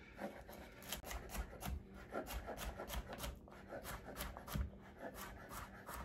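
Chef's knife dicing baby cucumbers on a cutting board: a steady run of light chopping taps, about three to four a second.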